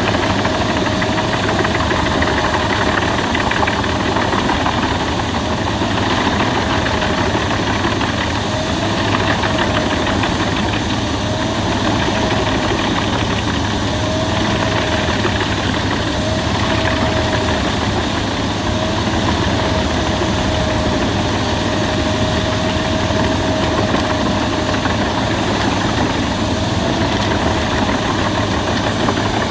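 Albach Diamant 2000 wood chipper running steadily, with a high whine that dips briefly and recovers every second or two.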